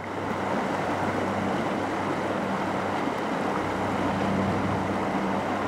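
Tidal rapids rushing over rocks in a steady, even rush as the lagoon drains into the cove at low tide. A steady low motor hum runs underneath.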